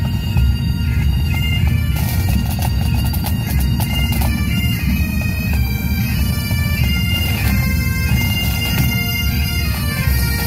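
Pipe band bagpipes playing a march tune over steady drones, the melody notes stepping up and down.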